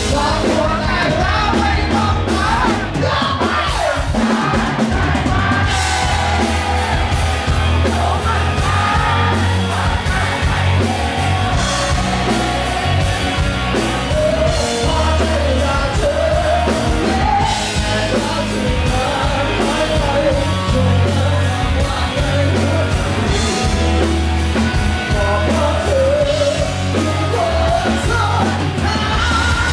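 Live rock band playing: a male lead singer belts a song over electric guitar, bass guitar and drums.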